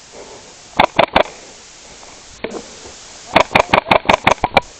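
Airsoft rifle shots: three quick shots about a second in, then a rapid string of about nine shots at roughly seven a second, starting about three and a half seconds in.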